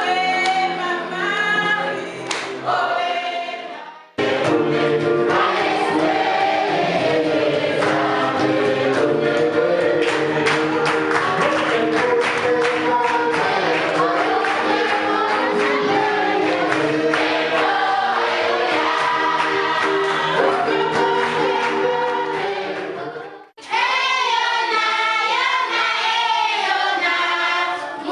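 A choir singing gospel music. The song is cut abruptly twice, about four seconds in and again near the end. The fuller middle section has many sharp percussive beats.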